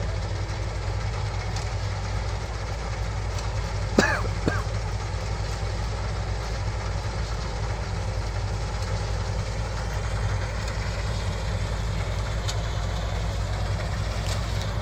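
Combine harvester engine running steadily under load while harvesting heavy paddy, a constant low drone. A sharp knock about four seconds in and a lighter one just after.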